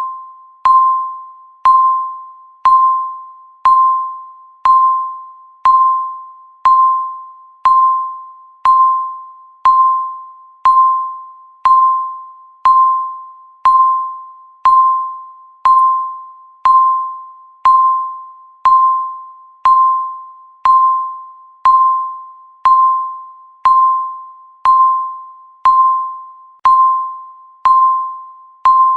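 Countdown timer's beep sounding once every second, each a single chime-like tone that starts sharply and fades away before the next.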